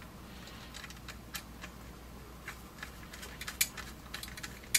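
Small, irregular metallic clicks and ticks of a hand tool and fingers working the screw terminals and nuts on a furnace control board, coming more often near the end.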